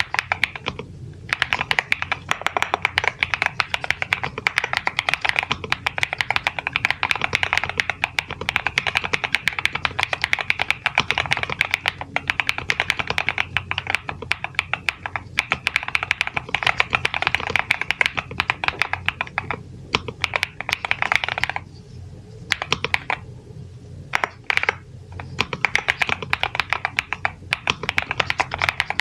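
Fast continuous typing on a NuPhy Halo96 V2 mechanical keyboard with Mint switches: rapid keystroke clacks, with a few brief pauses between runs.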